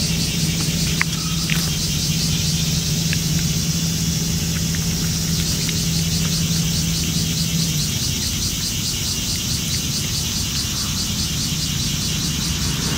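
Outdoor insect chorus, a high shrill pulsing in a fast even rhythm, over a steady low hum that stops about eight seconds in. A few soft clicks near the start.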